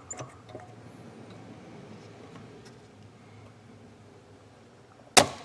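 Spring-loaded desoldering pump (solder sucker) firing once near the end with a single sharp snap as it pulls molten solder off a relay pin on the circuit board. Before it, faint room tone with a few light ticks.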